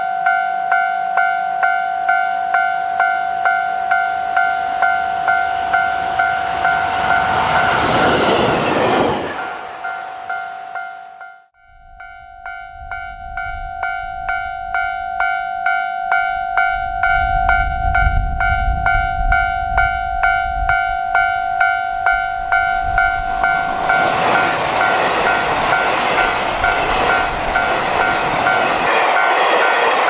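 Japanese level-crossing warning bell ringing a steady two-tone ding about twice a second, while a JR Hokkaido H100 diesel railcar runs past, louder toward about 9 s. The sound drops out briefly near the middle, then the crossing bell rings again over a low diesel engine rumble that builds. From about 24 s a diesel limited express train passes loudly over the crossing, wheels clattering on the rails.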